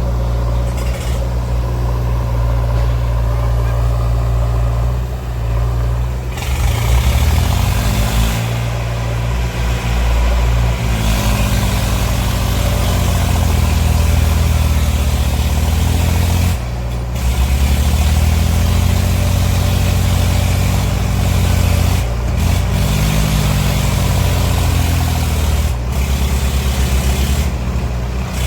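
Heavy diesel engine of a working machine running under load, its revs rising and falling again and again.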